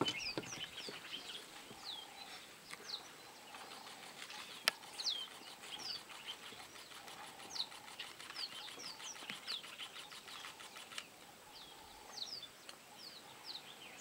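Small birds calling: many short, high chirps that fall in pitch, some overlapping, with one sharp click about five seconds in.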